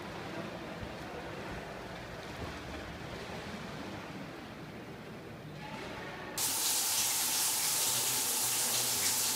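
Swimmer's freestyle strokes splashing in a pool, heard as a steady wash of water noise. About six seconds in, a louder steady hiss of spraying water cuts in abruptly.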